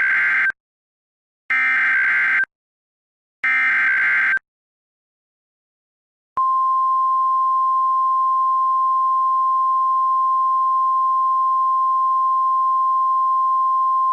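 Emergency Alert System SAME header: three one-second bursts of buzzy, screechy digital data tones about a second apart, then, after a pause of about two seconds, the steady single-pitch 1050 Hz NOAA Weather Radio alert tone, which holds on unbroken. The tones signal that a weather alert, here a severe thunderstorm watch, is about to be read.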